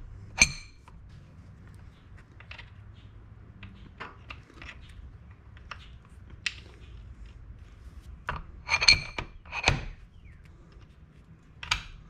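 Steel-on-steel clinks and clanks as a hex-shank chisel bit is fitted into an electric demolition jackhammer's chuck and its retaining pin is pulled and turned to lock the bit. There is one sharp ringing clink about half a second in, light ticking, then a run of louder ringing clanks about nine seconds in.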